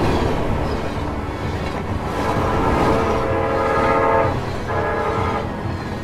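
WDP4 diesel-electric locomotive passing close by at the head of a passenger train, with a deep, steady rumble of engine and wheels. Its horn sounds in a long blast about two seconds in and a shorter blast near the end.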